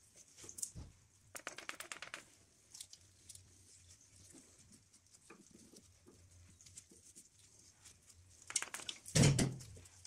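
Hand-work noise at a brake hub: a cloth rag rustling and small metal clicks as parts are handled. There is a quick run of clicks about a second and a half in, and the loudest moment is a rustling thump near the end.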